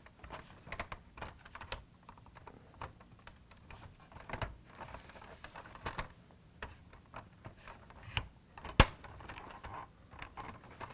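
Hard plastic parts of a toy car clicking and tapping irregularly as the body shell is handled and pressed down over the chassis, with one sharper click about nine seconds in.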